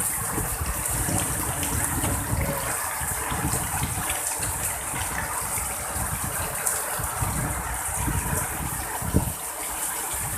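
Heavy rain pouring in a steady hiss, with strong wind gusting in uneven low rumbles.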